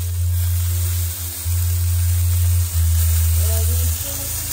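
Rump steaks and tomatoes sizzling on a grill rack, a steady fine crackle, over a loud low hum.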